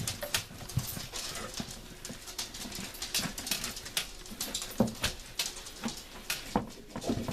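Cloth wiping and rubbing inside a microwave oven, with irregular light knocks and taps against the oven's walls.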